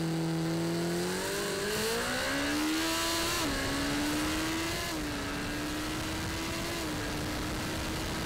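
Kawasaki Ninja ZX-14R's 1441 cc inline-four accelerating hard, heard from onboard with wind rush. The engine note climbs, dips at gear changes about three and a half and five seconds in, then holds nearly steady at high speed.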